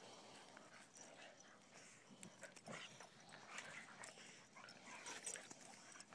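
Faint, scattered scuffling and soft sounds of two dogs, an adult and a puppy, playing together on grass.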